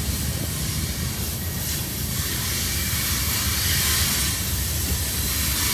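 Long CSX freight train's cars rolling along the rails below: a steady low rumble with a hiss over it.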